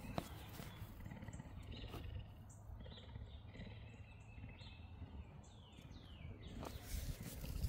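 Cougar purring as it is stroked: a steady, pulsing low rumble close to the cat's body, growing louder near the end. Birds chirp faintly in the background.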